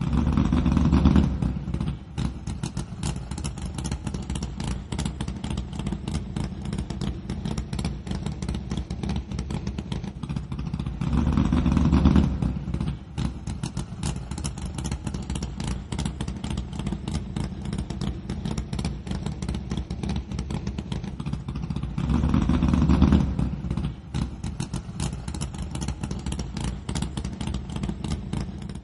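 Supercharged hot-rod engine idling with a fast, choppy beat, revved up three times about eleven seconds apart.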